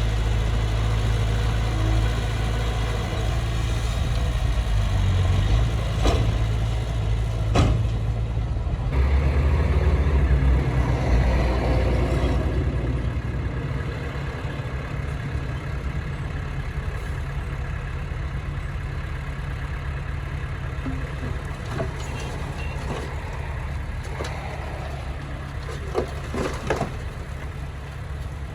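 Heavy construction machine's diesel engine running steadily, with a few sharp knocks or clanks. The engine note drops lower about nine seconds in, and the sound eases off a few seconds later.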